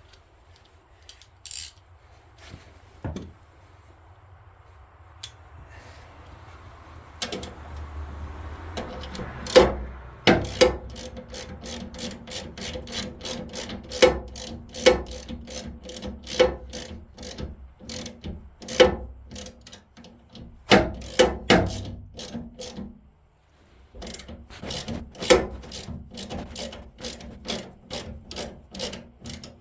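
Ratchet wrench clicking in quick runs of strokes, tightening a nylock nut onto a new auger shear bolt on a snowblower. A few scattered metal clicks come first; the steady ratcheting starts about seven seconds in and stops briefly a couple of times.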